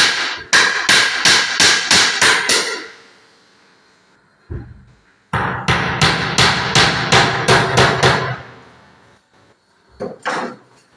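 Carpenter's hammer striking wood in two quick runs of about four blows a second, each run lasting about three seconds, then two more blows near the end.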